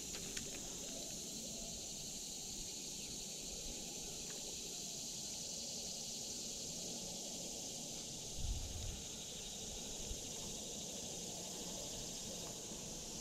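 Steady high-pitched insect chorus, with a brief low thump about eight and a half seconds in.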